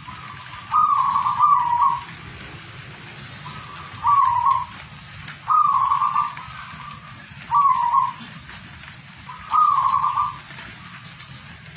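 Caged zebra dove (perkutut) cooing: five coo phrases of about a second each at much the same pitch, a second or two apart, over a steady background hiss.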